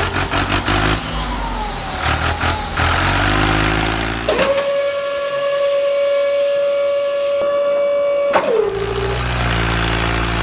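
A vehicle engine running. A steady whistle-like tone is held for about four seconds in the middle, and the engine's low sound drops out while it lasts.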